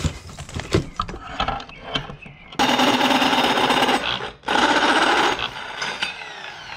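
Corded drill with a hole saw cutting into the metal top of a fire extinguisher: two loud runs of about a second and a half each, with a brief stop between. Before the cutting there are a few knocks as the cylinder is handled.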